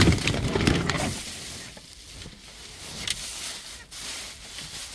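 Rustling and scraping of coarse netting handled by a hand searching through it, with close microphone handling noise. The loudest rustle comes in the first second, then quieter shuffling and small scrapes.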